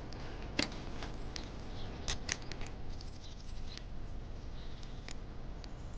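Scooter helmet's chin-strap buckle and strap being handled and fastened: a series of small, sharp clicks and light rustles. The loudest click comes about half a second in, and a quick pair follows about two seconds in.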